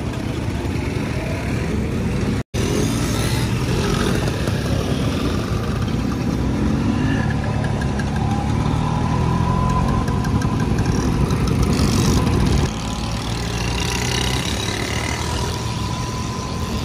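Vespa scooter engines running as a group of scooters rides off, heard from the pillion of a stretched Vespa, the engine note rising as they pull away a few seconds in. The sound breaks off for a moment near the start.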